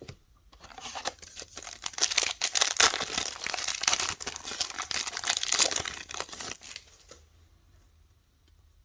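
Plastic trading card pack wrapper crinkling and tearing as it is ripped open: a dense run of crackles that stops about seven seconds in.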